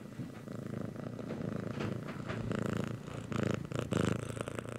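A domestic cat purring, a continuous rhythmic rumble that swells louder in pulses in the second half.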